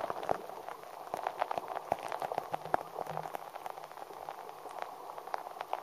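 Shallow seawater heard through a submerged camera: a dense, fizzing crackle of many small clicks and bubbling.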